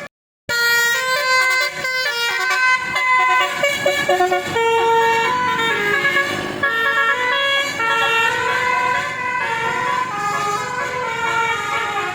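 Basuri telolet multi-tone air horn playing a tune of stepping horn notes, several sounding together. It starts about half a second in and keeps playing loudly.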